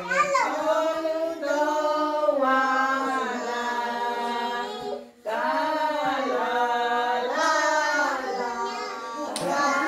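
Voices singing a slow melody in long held notes, breaking off briefly about five seconds in and then going on.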